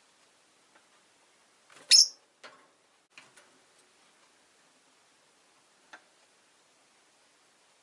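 Rosy-faced lovebird giving one loud, sharp, high chirp about two seconds in, followed by a few fainter short clicks and chirps.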